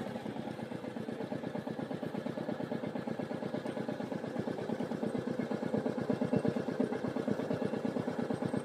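Royal Enfield 350 single-cylinder motorcycle engine idling with a steady, quick, even thump, growing a little louder in the second half.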